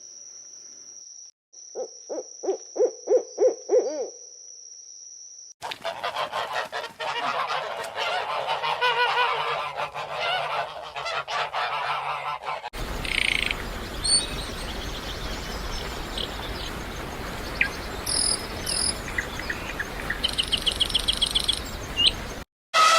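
A run of different animal calls in turn. First a quick series of about seven short low calls. Then a flock of birds calling loudly and continuously for several seconds. Then a noisy outdoor background with scattered short bird chirps.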